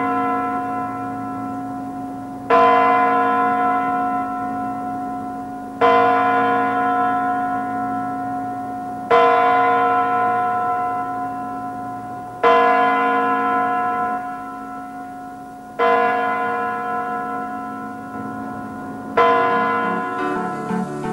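A bell tolling slowly: six strikes about three seconds apart. Each strike rings out and fades before the next.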